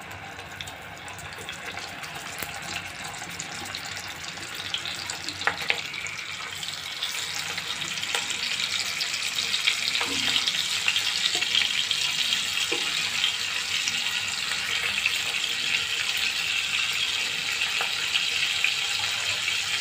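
Whole climbing perch (koi fish) frying in hot oil in a non-stick pan. The steady sizzle grows louder as more fish go into the pan, with a few sharp clicks of the spatula.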